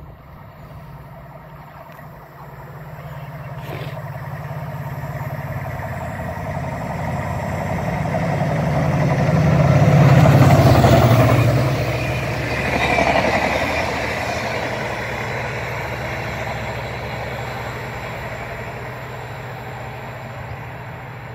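Locomotive-hauled passenger train passing through the station: a steady low engine hum grows as it approaches, is loudest about ten seconds in as the locomotive goes by, its note dropping, then the coaches roll past and the sound fades away.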